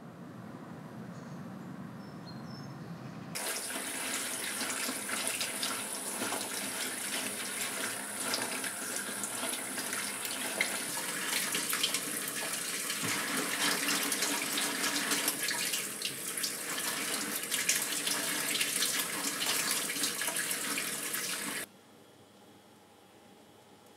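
Kitchen tap running over a bamboo basket of chestnuts in the sink while hands rub and turn the nuts under the stream. The water starts a few seconds in and cuts off suddenly near the end.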